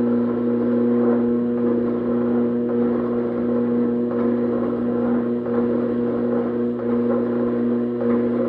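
Hydraulic forging press running as its ram squeezes a hot wootz steel ingot: a steady electric motor and pump hum with a light hiss.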